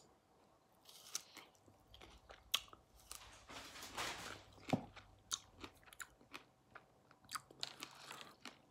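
Close-up chewing of a fresh strawberry: soft wet mouth sounds, lip smacks and small clicks, faint, with one sharper, louder sound about halfway through.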